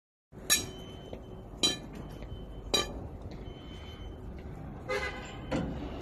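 Three sharp, ringing metallic clanks, evenly spaced about a second apart, over a steady low rumble, with a briefer pitched sound near the end.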